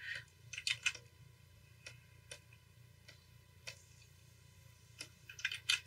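Scattered light clicks of computer input at a desk: single clicks spread through, with a quick run of several just before one second in and another near the end, over a faint steady hum.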